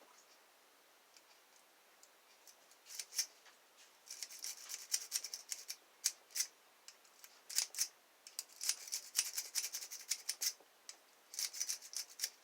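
Dimple rake pick being raked in and out of a dimple lock's keyway: rapid runs of fine metallic clicks and scratches in bursts. It starts about three seconds in and is densest in the second half.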